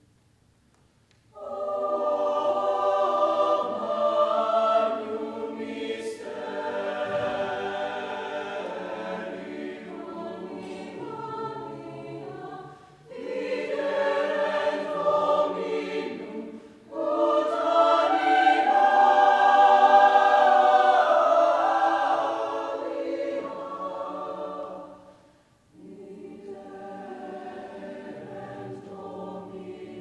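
Mixed choir of men's and women's voices singing, coming in strongly about a second and a half in after a brief silence, in long phrases with short breaks between them; the last phrase near the end is quieter.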